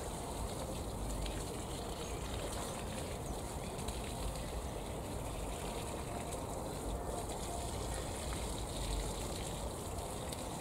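Water pouring steadily from a watering can onto garden plants and soil, a continuous trickling splash over a low rumble.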